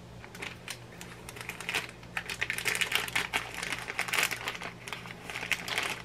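Thin plastic bag crinkling and crackling in the hands as its freshly heat-sealed top edge is pinched and worked between the fingers; sparse at first, then a dense run of crackles from about two seconds in.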